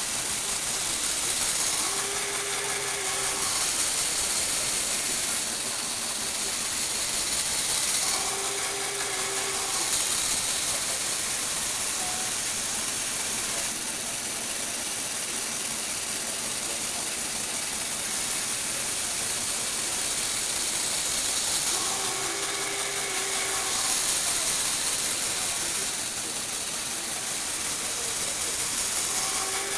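Lego Technic motor and plastic gear train running steadily, a continuous whirring and gear chatter, with a short squeal now and then as the platform turns.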